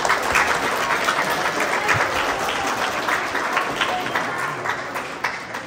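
Audience applauding, a steady patter of many hands clapping that fades out near the end.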